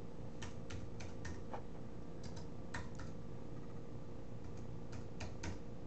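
Typing on a computer keyboard: irregular key clicks in loose clusters, over a steady low electrical hum.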